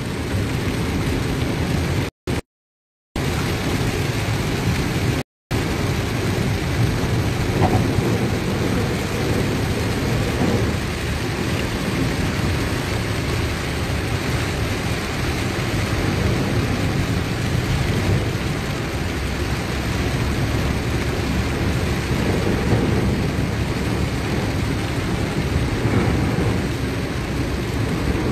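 Heavy rain beating on a moving car, heard from inside the cabin as a steady, dense noise. The sound cuts out briefly twice, about two and five seconds in.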